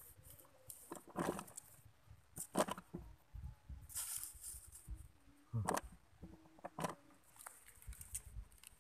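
Dry straw and grass rustling and wet mud squelching as a hand presses and shifts in the mud beside an eel hole, in about five short separate bursts.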